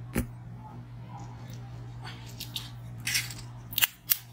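Plastic water bottle being handled, with a short rustle and then two sharp clicks near the end as its screw cap is twisted open.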